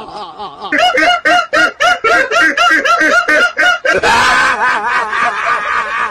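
High-pitched laughter in quick, evenly spaced 'ha' pulses, about four a second, for about three seconds, then running on as looser, continuous laughing.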